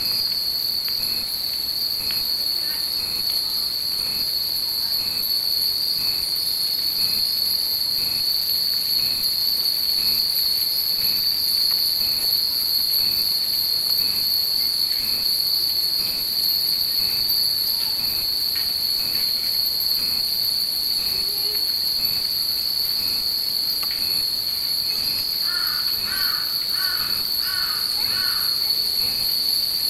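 Many wind chimes (fūrin) hung in a tree, tinkling lightly in the breeze, under a loud, steady, high-pitched insect drone typical of summer cicadas. A bird calls four times near the end.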